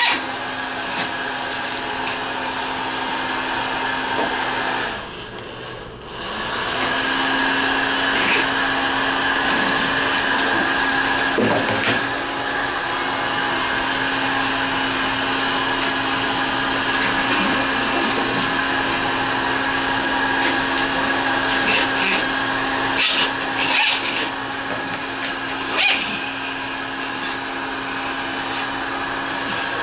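Pet grooming dryer blowing steadily with a constant hum, briefly dropping away about five seconds in. A few short cries from the toy poodle come through over it about two-thirds of the way through.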